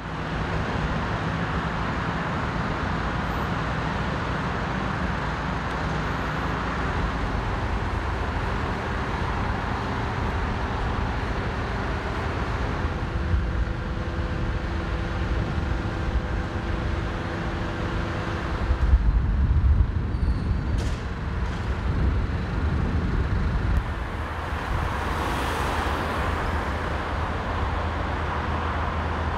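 Heavy diesel engine of a mobile crane running steadily as it hoists a stadium floodlight mast, with a louder low rumble about two-thirds of the way through.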